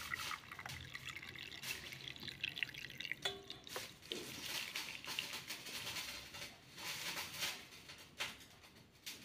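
Boiled water poured from a steel pan through a stainless steel mesh strainer into a steel vessel, splashing and trickling through the mesh, thinning toward the end.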